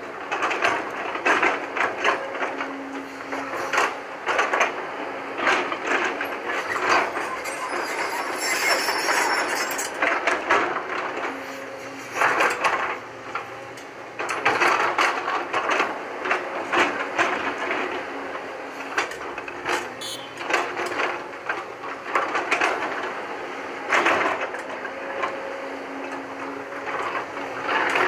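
JCB tracked excavator working, its engine running under load while the steel bucket scrapes and clanks against rock and loose stones, with frequent irregular knocks and clatter.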